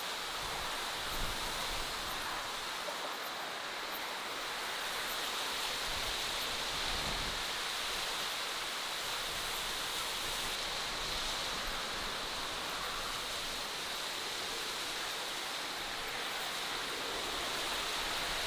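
Steady outdoor natural ambience: an even, unbroken hiss with no distinct events.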